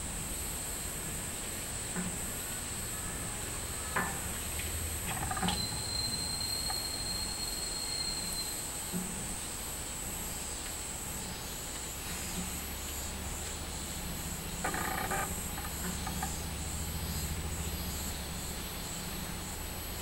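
Minmin cicadas (Hyalessa maculaticollis) singing: a steady high-pitched buzz that, about halfway through, breaks into a quick, regular pulsing.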